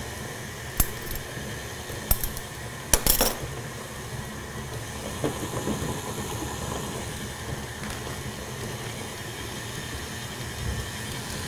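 KitchenAid Artisan tilt-head stand mixer running steadily with its paddle beating a stiff fondant and butter mixture, with a few sharp clinks in the first three seconds.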